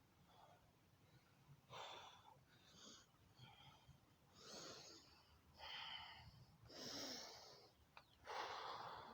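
A man breathing hard, catching his breath between burpees: about six audible breaths, roughly one a second, the last ones loudest.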